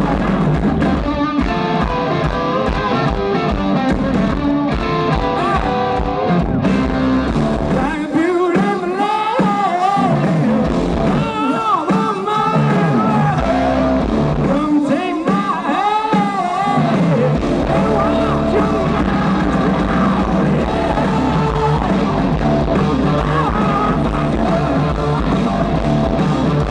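Live rock band playing loud through a festival PA: electric guitars, drums and a singing voice. About eight seconds in, the low end drops away for several seconds under the voice and guitar, then the full band comes back in.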